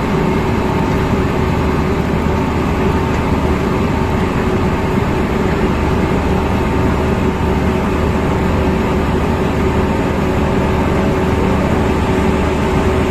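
Barge sand-unloading machinery running with a steady, even drone and hum. Over it is a constant hiss of alluvial sand flowing out of the hold.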